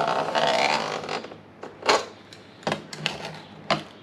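A blade cutting through the layered ceiling baffle of a rooftop RV air conditioner. A dense scraping cut runs for about the first second, then four sharp clicks follow.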